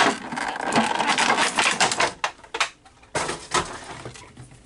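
Clear plastic packaging crinkling and crackling as it is handled, for about two seconds, followed by a few short clicks and rustles.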